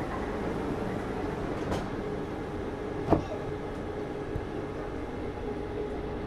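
Wenhu line rubber-tyred automated metro train running, heard from inside the car as a steady rumble and hum, with a few light clicks and one sharp knock about three seconds in.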